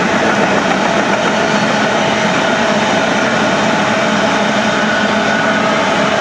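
Freight train rolling past: a steady rumble and rail noise from the wheels of open-top hopper cars on the track.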